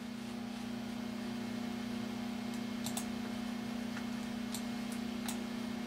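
Steady low hum of a computer fan, with a few faint mouse clicks scattered through it.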